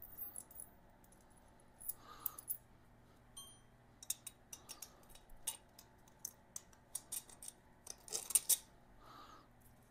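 Light clicks and clinks of small hardware being handled, with a few short rustling scrapes and one brief high ring about a third of the way in; the loudest cluster of clicks comes near the end.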